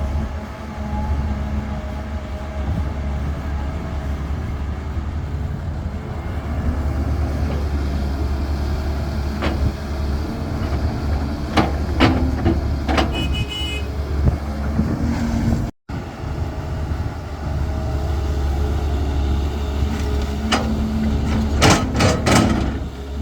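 Caterpillar 320 excavator's diesel engine running steadily with a low drone and hum, broken by sharp knocks and clanks: a cluster near the middle and another near the end. The sound cuts out for an instant about two-thirds of the way through.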